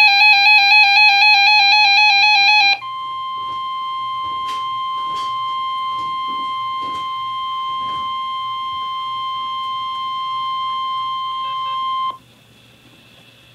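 A radio emergency alert: a loud warbling electronic tone for about three seconds, then the steady high-pitched NOAA Weather Radio warning alarm tone (about 1050 Hz) held for roughly nine seconds before it cuts off abruptly. This tone signals that a warning message follows. A few faint clicks sound during the steady tone.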